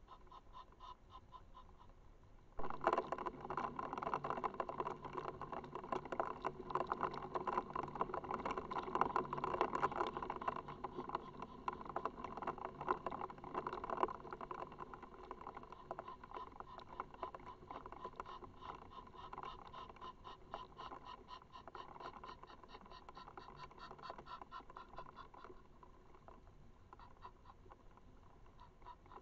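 Rain pattering. It picks up suddenly about three seconds in as a dense crackle of drops, then slowly eases off through the second half.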